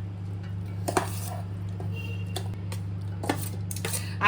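A spoon and utensils knocking and clinking against a mixer-grinder jar and bowl a handful of times as boiled onion, garlic, ginger and cashews are transferred in for grinding, over a steady low hum.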